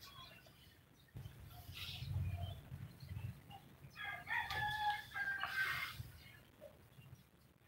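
A rooster crowing once: one drawn-out call of about two seconds, starting about four seconds in, with a low rumble before it.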